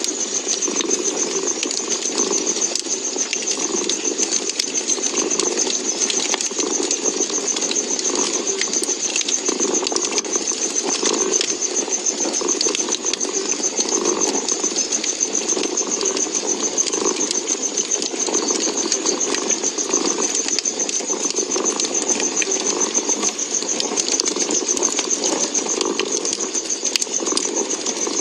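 A cat purring continuously, swelling and fading in a slow regular rhythm with each breath, over a crackling wood fire with many small scattered pops.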